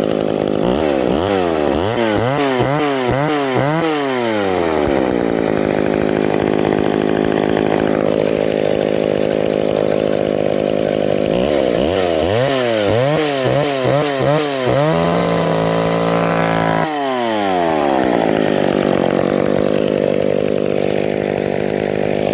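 McCulloch chainsaw's two-stroke engine idling, blipped through a rapid run of quick throttle revs about a second in and again around twelve seconds in. The second run ends in about two seconds held at high revs before the engine drops back to idle.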